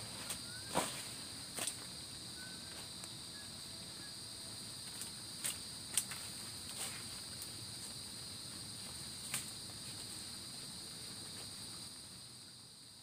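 Steady high-pitched shrilling of crickets or similar field insects, fading near the end, with a few sharp clicks or snaps scattered through.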